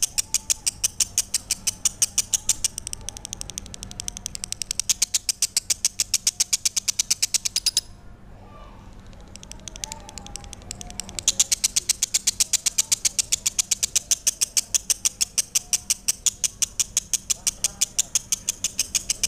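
Lovebird singing a long, fast run of sharp, high-pitched chirps repeated evenly several times a second. It breaks off briefly about eight seconds in, then resumes.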